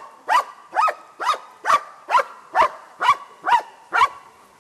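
German shepherd barking steadily at a helper standing in the hiding blind, about two barks a second. This is the bark-and-hold at the blind in protection sport training.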